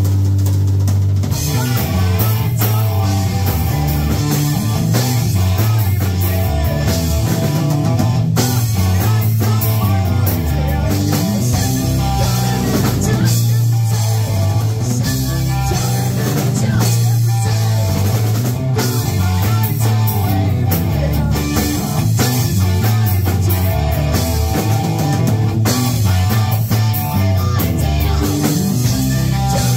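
A live rock band playing loudly: distorted electric guitar through a Blackstar amp, electric bass guitar and a Tama drum kit, continuous throughout with a heavy bass line.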